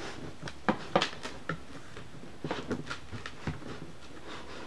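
Cardboard board book being opened and its cover laid flat by gloved hands: a series of short knocks, taps and rustles, the loudest about a second in.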